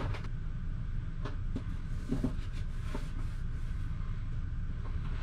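A steady low hum, with a few faint rustles and clicks as a sheet of peel-and-stick wallpaper and its paper backing are handled and pressed onto a curved wall.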